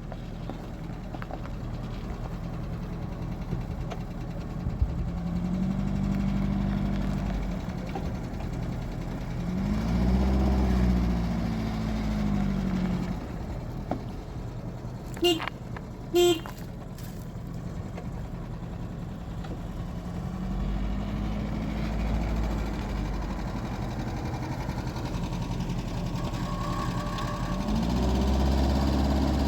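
A motor vehicle's engine revving up and easing off several times as it drives, with two short horn toots about halfway through.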